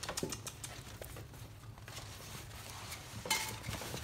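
Puppies scrabbling and playing on a tile floor: quick clicks and taps of claws and toys, with a brief high-pitched squeak a little over three seconds in.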